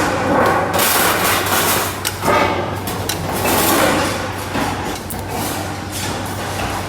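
Factory machinery in a stainless steel sink production line, running with a steady low hum under uneven surges of noise and scattered metallic knocks.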